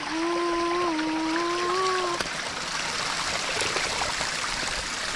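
A small spring trickling and splashing in a thin stream down stacked rock slabs, a steady rush of water. In the first two seconds a voice holds one drawn-out note over it.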